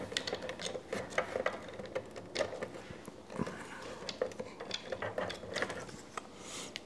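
Irregular small clicks and taps of 3D-printed plastic model parts being handled and pressed into place.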